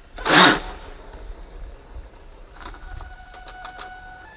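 HPI Baja 5B Flux 1/5-scale RC buggy with a Castle 2028 brushless motor driving off at low speed. A brief loud rushing burst comes about half a second in, then the motor's high electric whine holds steady with a few light ticks.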